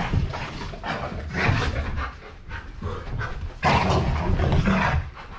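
Two dogs play-wrestling: heavy panting and scuffling in irregular bursts, loudest for about a second in the second half.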